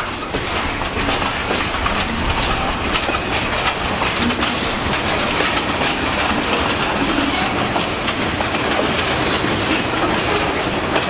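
Freight train cars rolling past close by: steady rumble of steel wheels on the rail with clickety-clack over the rail joints.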